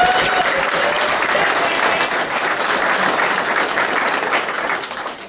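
An audience applauding, the clapping thinning out and dying away near the end.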